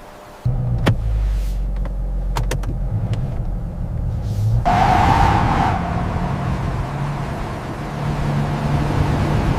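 Car engine running with a deep, steady rumble that cuts in suddenly about half a second in, with a few sharp clicks early on and a louder rushing surge around the middle.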